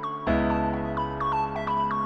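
Background music: a bright keyboard tune with quick repeated high notes over held chords, the chord changing about a quarter-second in.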